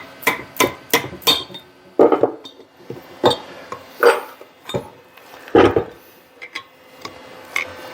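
Metal drill press parts being knocked and clinked: about a dozen sharp metallic strikes, a quick run of them at first and then more spaced out, some ringing briefly.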